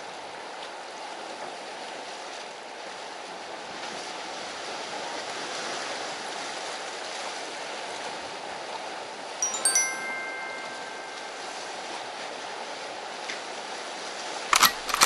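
Sea waves washing steadily against the concrete tetrapods of a breakwater. About two-thirds in, a short bright chime rings, and near the end there are a couple of sharp knocks.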